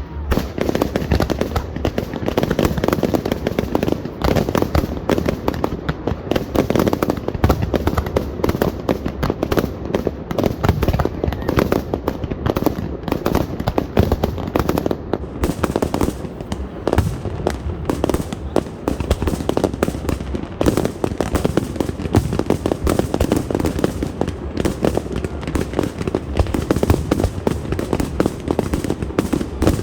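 Fireworks display: a dense, continuous barrage of bangs and crackling bursts going off one after another.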